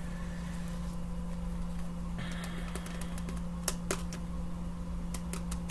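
Light clicks and taps of tarot cards being handled: a few scattered ones, then a quick run of them near the end, over a steady low hum.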